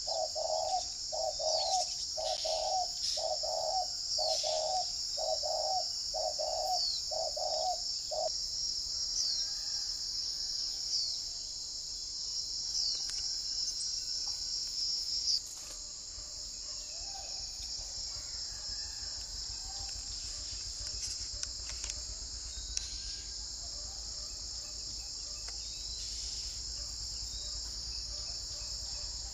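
A steady, high-pitched insect drone throughout. Over it, in the first eight seconds, a bird gives a rapid, even series of low hoots, and short high chirps, each falling in pitch, come every second or so until about halfway through.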